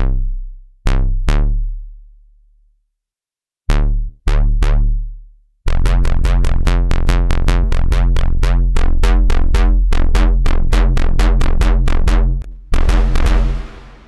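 Synth bass from the reFX Nexus 4 software synthesizer's "Jun mono Bass" preset. First come a few single low notes, each struck sharply and dying away. About six seconds in it breaks into a fast, steady run of repeated notes, and near the end a hiss-like wash of effects is added over the notes.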